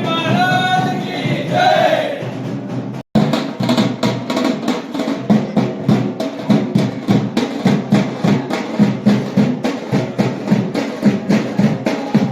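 Drums beating a fast, even rhythm. A pitched, gliding voice or melody sits over them for the first two seconds, and the sound cuts out for an instant about three seconds in.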